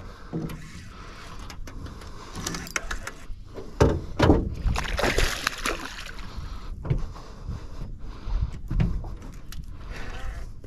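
A hooked bass splashing at the water's surface beside a small fishing boat while it is brought in, with several knocks on the boat, the loudest about four seconds in.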